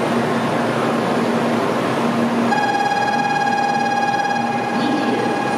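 Shinkansen platform ambience: the steady hum and rush of trains standing at the platform and the station around them. About halfway through, a steady electronic tone with a clear pitch starts and holds without a break.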